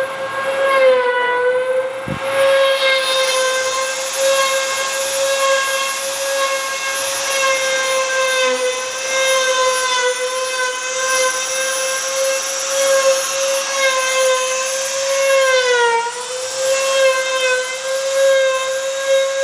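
Trim router serving as a CNC router's spindle, running at a high, steady whine while its bit carves a relief into a wooden panel, with a hiss from the cutting. A click comes about two seconds in, and the whine sags briefly in pitch about sixteen seconds in.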